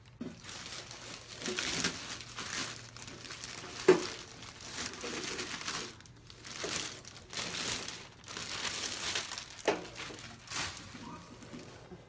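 Thin plastic bag crinkling and rustling in irregular bursts as it is pulled off a stainless steel toaster oven. A sharp click about four seconds in is the loudest moment.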